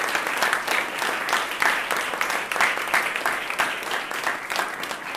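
Audience applauding: many hands clapping steadily at once.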